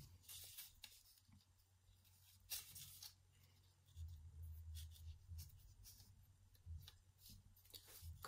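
Near silence with faint scattered rustles and soft clicks of hands working the yarn warp on a frame loom, pushing the threads down against the nails, over a faint low hum.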